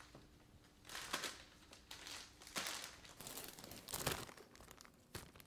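Clear plastic food bags crinkling and rustling in a few irregular bursts as they are handled and scallions are pushed into them.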